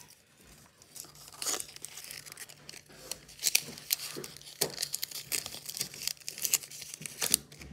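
Clear sticky tape being pulled off a dispenser roll and torn, with paper being handled and crinkled: a series of short, irregular crackles and rips starting about a second in.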